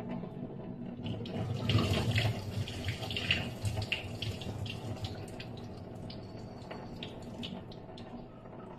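Water splashing in a stainless steel sink as soaked wheat grains are rinsed in a steel bowl and the water is poured off, loudest between about one and five seconds in, then dying down.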